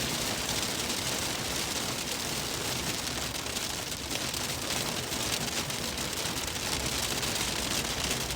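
Hail and rain drumming on a car's roof and windshield, heard from inside the cabin: a dense, steady patter of countless small hits over the car's road noise.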